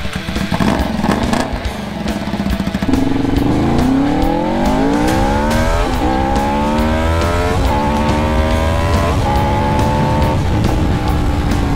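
Honda VFR750's V4 engine accelerating hard, climbing in pitch, then shifting up four times with a short drop in pitch at each shift.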